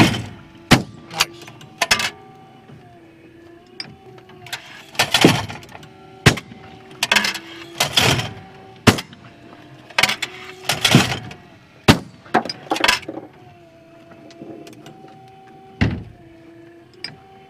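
Shotgun shots at clay targets, a dozen or so sharp reports spread over the stretch, some with a ringing tail. Between them a battery-powered automatic clay trap thrower clunks as it launches and hums steadily while its electric motor recocks the arm.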